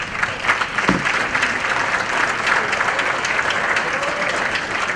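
Audience applauding steadily, a dense patter of many hands clapping, with a single low thump about a second in.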